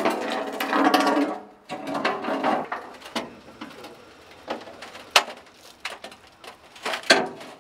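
A louder, wavering pitched sound at the start, then several separate sharp knocks and clunks spread over the next few seconds.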